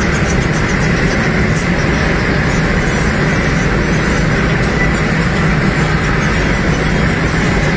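Steady inside-the-cabin driving noise of a 2014 Toyota Avanza on the move: a low engine drone mixed with tyre and wind noise, without a change.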